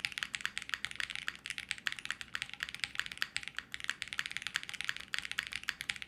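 Fast, continuous typing on a TG67 custom mechanical keyboard with a PC plate: a dense run of key clacks, with the slight metallic ringing noise heard in this board.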